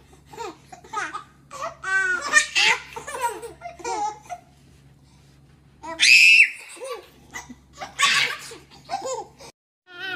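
Two babies laughing at each other in repeated bursts of giggles and belly laughs. About six seconds in comes a loud, high-pitched squeal of laughter.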